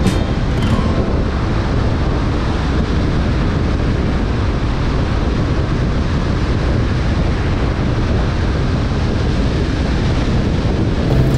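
Steady rushing wind and road noise from a car driving on a highway, even and unbroken, with the tail of a music track dying away in the first second.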